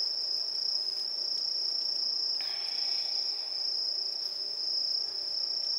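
Insects trilling: a steady, unbroken high-pitched chirring.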